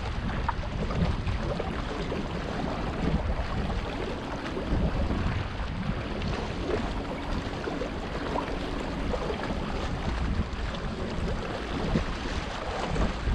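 Wind buffeting the microphone in a steady low rumble, with small sea waves lapping and splashing against the rocks of a breakwater.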